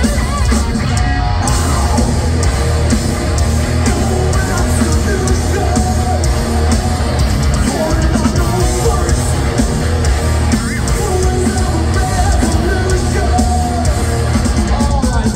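A thrash metal band playing live with distorted electric guitars, bass, drums and a singer's vocals, loud and unbroken.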